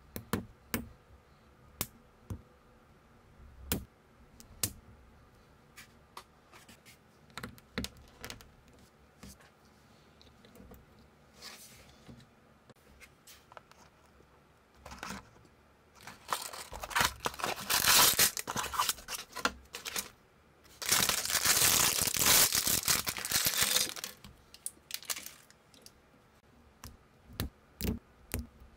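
Small plastic minifigure parts clicking and snapping together in scattered single clicks. A little past halfway come two loud spells of packaging being torn and crinkled open, each a few seconds long. A few more clicks follow near the end.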